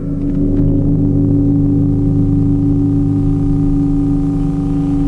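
Noise-music drone from the Neptune 610 audio mixer: several steady tones held together over a low hum, one low-mid tone the loudest, with no change in pitch or level.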